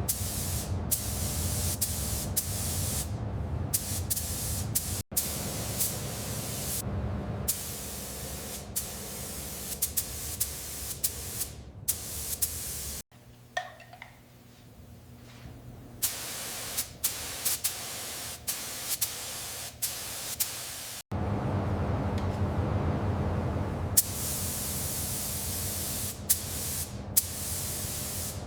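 Spray painting hiss in repeated bursts with short breaks, with small clicks between them. The hiss stops abruptly several times at edit cuts, and is fainter for a few seconds in the middle.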